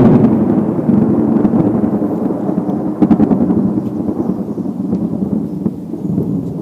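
Loud, steady low rumble of noise buffeting the camera microphone, with a short cluster of sharp clicks about three seconds in.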